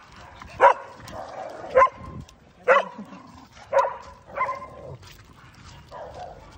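A dog barking: five sharp barks about a second apart, then a fainter one near the end.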